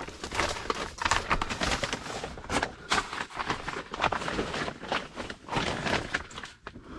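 A person crawling under a mobile home: irregular scuffing, rustling and scraping of hands, knees and clothing on the ground and debris.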